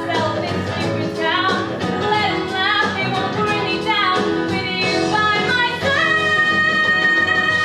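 A young woman singing a show tune solo with live piano accompaniment; about six seconds in she settles into a long held note.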